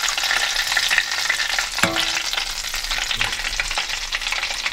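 Breaded chicken deep-frying in hot oil, a steady dense crackling sizzle full of tiny pops.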